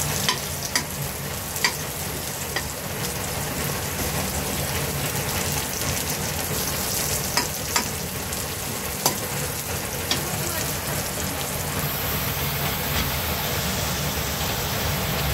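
Chopped garlic and onion sizzling in hot oil in a pan, stirred with a metal spatula that clicks against the pan now and then. About twelve seconds in the sizzle changes as raw chicken pieces go into the pan.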